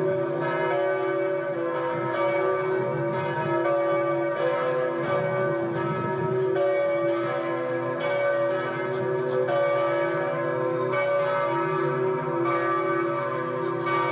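Church bells ringing in a continuous peal, fresh strokes about once a second overlapping into a steady, many-toned ringing.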